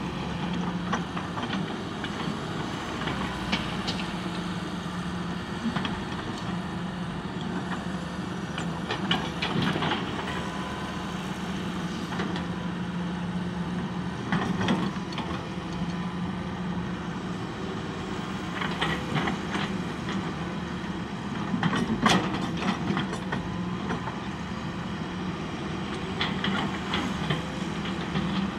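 Hitachi hydraulic excavator working, its diesel engine running steadily with a low drone, while the bucket and boom clank and knock sharply every few seconds as it digs soil; the loudest clank comes about two-thirds of the way through.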